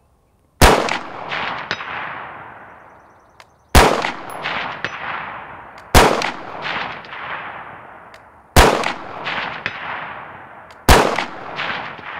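Five unsuppressed 5.56 shots from an AR-15 special purpose rifle, fired singly two to three seconds apart, each sharp report followed by a long echo that dies away over about two seconds. A fainter clang of a hit on steel comes back about a second after several shots.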